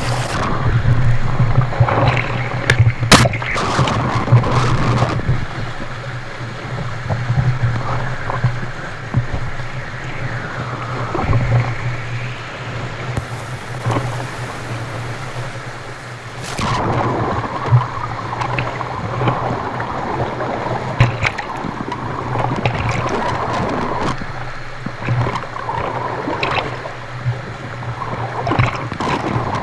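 Whitewater rapids rushing and splashing right against the camera on a canoe pinned on a rock, with a steady low rumble and occasional sharp knocks. About thirteen seconds in, the rush turns to a louder hiss for a few seconds as water surges over the hull.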